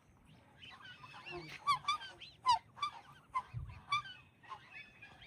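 Geese honking, many short calls in quick succession and overlapping one another, loudest through the middle.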